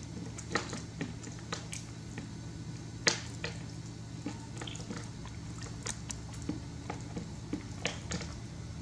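Light clicks and taps of a plastic spoon handled against a woven bamboo tray, irregular, about one every half second, the sharpest about three seconds in, over a steady low hum.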